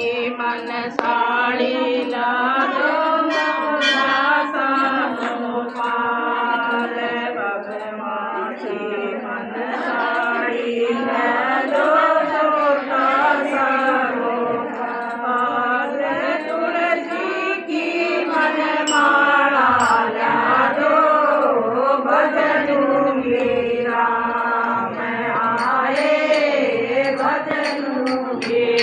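Group of women singing a Hindu guru bhajan together in unison. Near the end, a quick, even run of sharp ticks joins the singing as a rhythmic beat.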